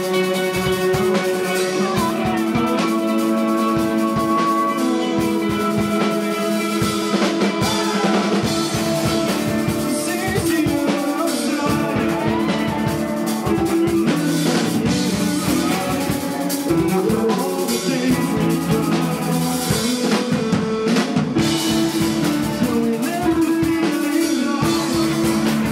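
Live band playing: electric guitars and a drum kit, with a singer's voice over them.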